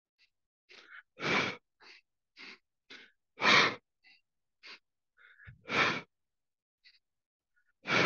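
A person doing the breath of joy: three short sniffing inhales through the nose, then a forceful exhale out of the mouth, repeating about every two seconds. The exhales are the loudest sounds, four of them in all.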